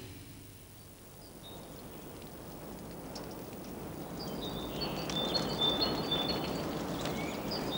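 Outdoor woodland ambience: a faint, even hiss that slowly swells, with a few short high bird chirps in the middle.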